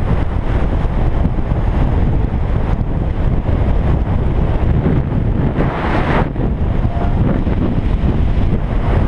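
Wind buffeting a GoPro's microphone as a bicycle coasts fast downhill on asphalt: a steady, loud rumbling rush, with a sharper surge about six seconds in.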